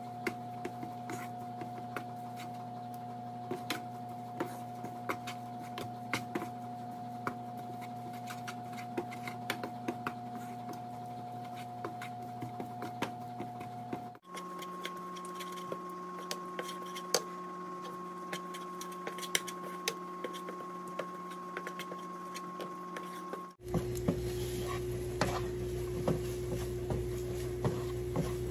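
Wooden spatula scraping and tapping against a nonstick frying pan while diced bacon is stirred, with a light crackle of the bacon frying as its fat renders. A steady low hum runs underneath and changes pitch twice.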